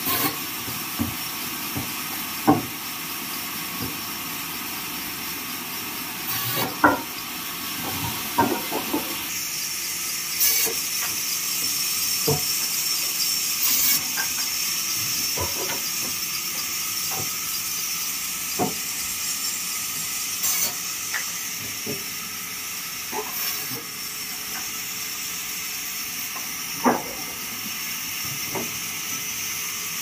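A steady hiss with irregular sharp wooden knocks, a dozen or so spread through it, as sawn neem planks are handled and stacked.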